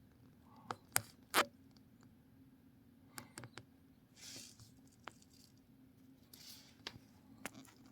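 Quiet background with scattered faint clicks and taps. Two soft, brief hissing swells come about halfway through and again near the end.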